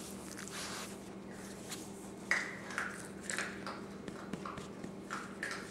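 A chihuahua's short burp about two seconds in, followed by several fainter short noises.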